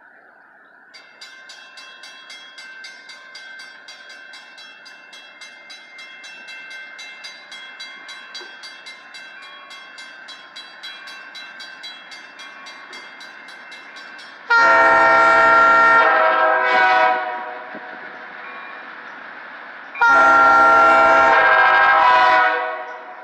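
Grade-crossing signal bell ringing rapidly and steadily from about a second in. A GE B23-7 diesel locomotive's multi-tone air horn then sounds for the crossing: a long blast, a short one, then another long blast near the end, much louder than the bell.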